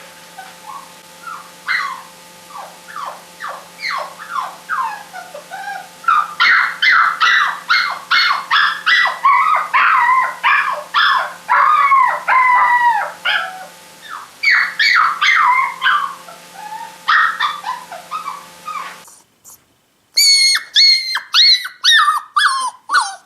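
Puppies crying: a rapid run of short, high-pitched whimpers and whines, many falling in pitch, growing louder and denser about six seconds in. After a brief break near the end, a different recording follows with even higher, squeaky cries.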